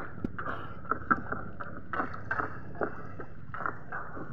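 Water lapping and splashing close by in irregular small splashes, several a second.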